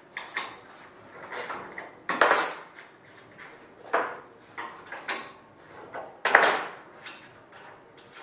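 Thin sheet metal and metal tools being handled at a sheet-metal bending brake: a series of separate metallic clanks and rattles, the loudest about two and six seconds in.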